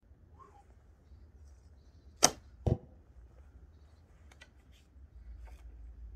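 An 80-inch, 45-pound elm Holmegaard longbow shot once: a sharp snap of the string as the arrow is released about two seconds in, then under half a second later the thud of the arrow striking the target. Faint small clicks follow as the next arrow is handled and nocked.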